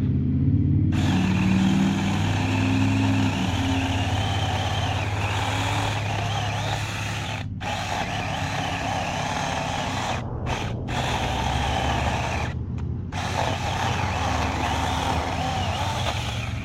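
Saker mini cordless electric chainsaw running and cutting into a tree trunk: it starts about a second in, with a steady motor and chain whine, and stops briefly several times before carrying on.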